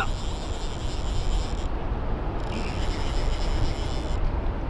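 Wind buffeting the microphone in a steady low rumble. A thin, high whirring comes in twice, each time for about a second and a half.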